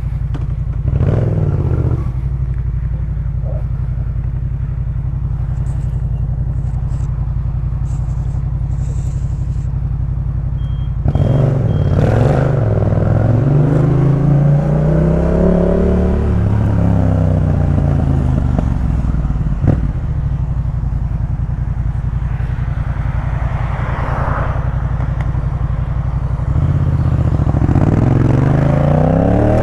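Yamaha MT-07 parallel-twin engine through a Jeskap K4 full exhaust system, riding along: it holds a steady note, then the pitch climbs as the rider accelerates through the revs and falls back as he rolls off, and climbs again near the end. There is one sharp click in the middle.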